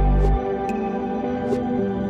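Ambient new-age background music: sustained, steady synth tones with a deep bass note that drops out about half a second in, and a few light high ticks.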